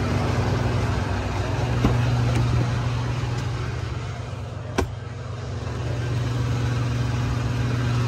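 Fuel pump dispensing diesel into the truck's tank, a steady low hum. A single sharp click about five seconds in.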